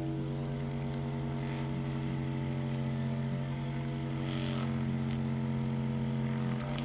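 Steady low hum with a stack of even overtones, like a small motor running; its pitch shifts slightly near the end.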